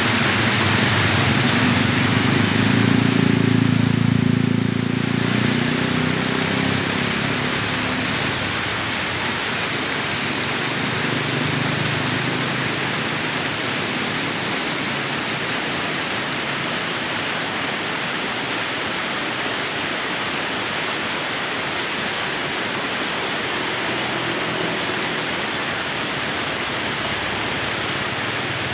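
Steady rushing of river water. In the first several seconds a low engine hum rises, peaks about four seconds in and fades out by about eight seconds.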